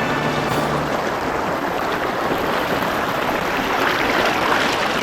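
Loud, steady rush of creek water pouring over a waterfall, loud enough to drown out a voice.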